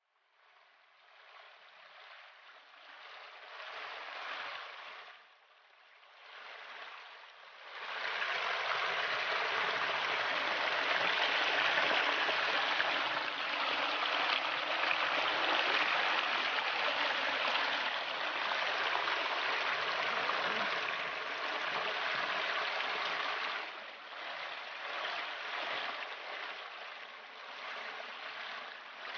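Small forest waterfall splashing down over rocks: a steady rush of falling water, faint and uneven at first and much louder from about eight seconds in.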